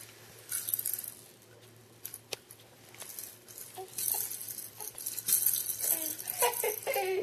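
Baby's handheld toy rattle being shaken in irregular bursts: a short shake about half a second in, scattered clicks, then a longer stretch of shaking from about four seconds in.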